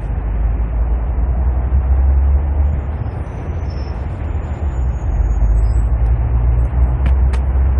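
Steady, loud low rumble with a hiss over it: outdoor urban background noise. Two short clicks sound near the end.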